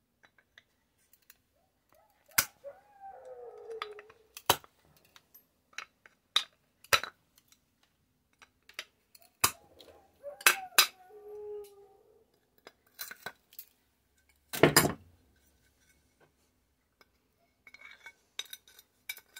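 Pliers working a metal part loose from a radio transceiver's chassis: scattered sharp clicks and clinks of metal on metal, with two stretches of squeaking as the part is twisted, and one louder knock about three quarters through.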